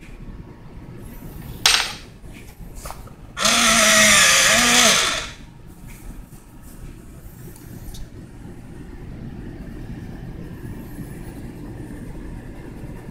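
A motor-driven machine runs loudly for about two seconds with a harsh grinding hiss, its hum dipping in pitch twice, over a steady low rumble; a sharp click sounds shortly before it.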